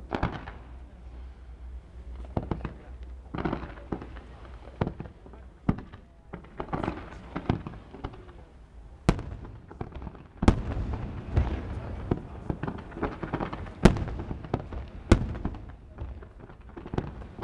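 Fireworks display: shells bursting in an irregular run of sharp bangs, with a few much louder ones from about nine to fifteen seconds in.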